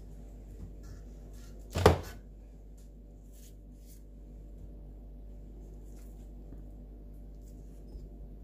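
A single loud knock about two seconds in, over a steady low hum. Near the end come a few faint clicks as a knife slices banana over a blender jar.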